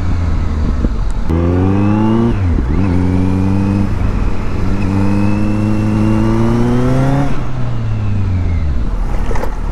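Motorcycle engine pulling up through the revs. It dips briefly about two seconds in, climbs slowly for several seconds, then rolls off with falling pitch near the end, over a steady rush of wind noise.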